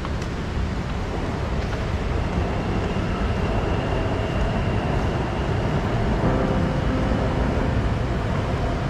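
Steady low rumble of city traffic, growing a little louder midway, with a faint steady high whine over it.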